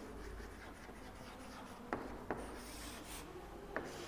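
Chalk writing on a chalkboard: faint scratching, with a few sharp taps of the chalk against the board.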